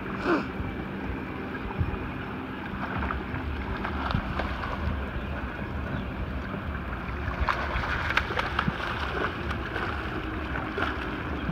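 Low steady rumble of a slow-trolling fishing boat, with wind on the microphone and water washing along the hull, while a catfish is played on rod and reel. About seven to nine seconds in comes a run of sharp clicks and splashes as the hooked channel catfish thrashes at the surface beside the boat.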